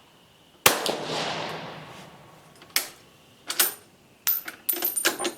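A single rifle shot from an Italian Vetterli 1870/87/15 firing a light cast-bullet load, its report dying away over about a second and a half. It is followed by a run of metallic clicks and clacks as the bolt is worked to eject and reload, in an action that runs rough because its housing isn't quite holding the clip right.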